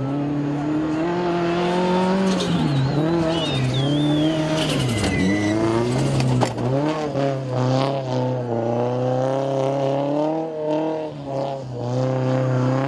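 Toyota GT86 rally car's flat-four engine revving hard on a dirt stage. Its note climbs and drops again and again as the driver shifts gears and lifts off the throttle.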